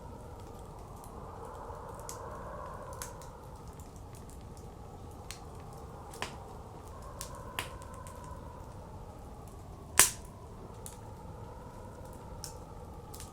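Wood fire crackling with scattered sharp pops, one much louder pop about ten seconds in, over blizzard wind that rises and falls in slow gusts.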